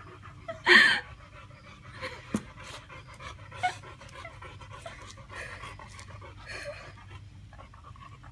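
A woman's loud squeal just under a second in as she pulls out the puppy, then quick panting, sobbing breaths as she cries, with a couple of short sharp squeaks.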